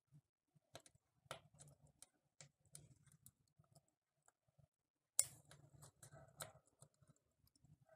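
Near silence with faint, scattered light clicks and taps, and one sharper knock about five seconds in.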